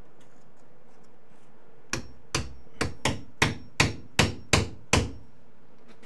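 Hammer tapping wooden shims in between a door jamb and the wall framing: about nine sharp strikes, two or three a second, starting about two seconds in.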